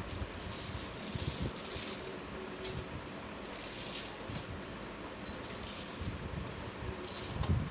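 Dry vermicelli being snapped by hand into short pieces, with irregular crackling and small pattering as the pieces drop into a steel pot of warm water.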